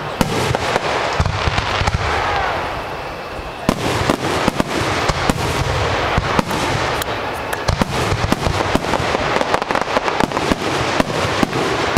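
Fireworks display: a rapid, dense string of bangs and crackling bursts, easing off briefly about three seconds in, then a thick barrage of reports.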